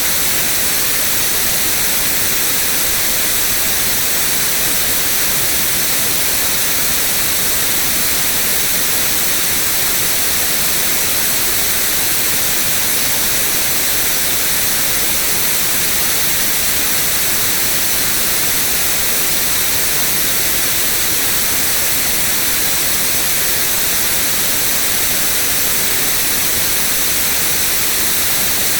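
White noise: a steady, even hiss that is loud and weighted toward the treble, with no change throughout.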